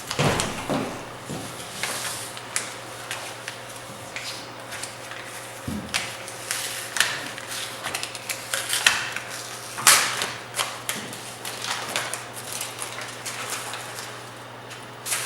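Paper rustling and shuffling as sheets are handled, with scattered small clicks and taps and a sharper knock about ten seconds in, over a faint steady room hum.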